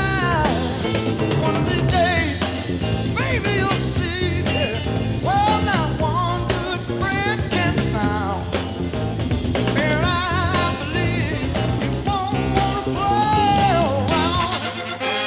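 Blues-rock band playing, with drum kit, bass and a lead line that slides and wavers between notes; in the last second the bass drops away.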